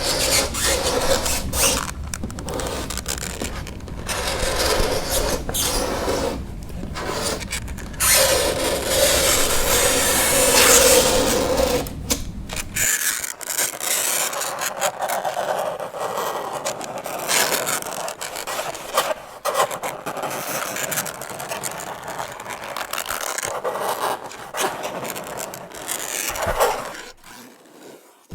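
Fingernails scraping across a chalkboard in repeated dragging strokes, with a squealing tone about eight to eleven seconds in. A low rumble underneath stops about thirteen seconds in.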